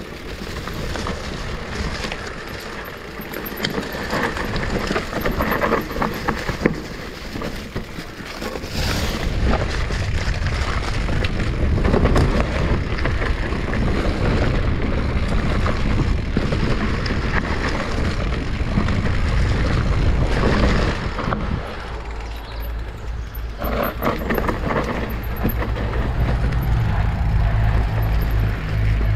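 Electric mountain bike riding down an enduro trail: tyres rolling over dirt and roots, with the bike clattering and knocking over the bumps. A deep rumble sets in about nine seconds in.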